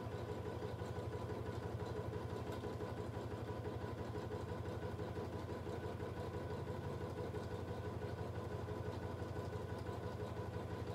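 Domestic electric sewing machine running steadily at an even speed, the needle stitching rapidly through a quilt sandwich of top fabric, wadding and backing.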